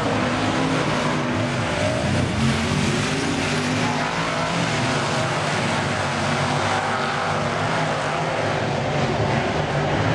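Several Late Model speedway race cars' V8 engines running hard in a pack, blending into one steady, loud engine noise whose pitch wavers as the cars lap.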